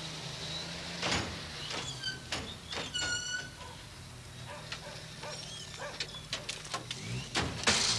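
Army armoured vehicles running with a steady low engine drone, under a string of knocks and clanks of doors and kit as soldiers climb out at the rear. A brief high squeak about three seconds in, and a louder bang or scrape near the end.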